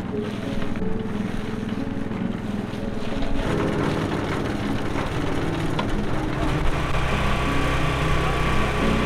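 An engine running steadily with a fine low firing pulse. Its sound shifts about three and a half seconds in and again a few seconds later, as if under changing load.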